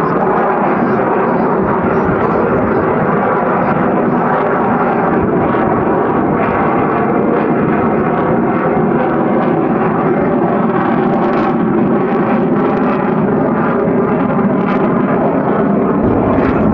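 Lockheed Martin F-22 Raptor's twin Pratt & Whitney F119 turbofan jet engines running loud and steady during a slow-speed pass at under 90 knots.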